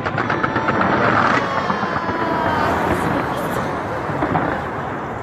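Fireworks going off in a large display: a fast run of sharp crackles at the start, then a dense continuous din of bursts.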